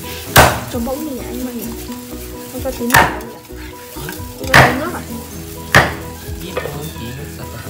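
Metal ladle clanking sharply against metal pots four times, each knock ringing briefly, as sour fermented rice is ladled over fish in a steamer.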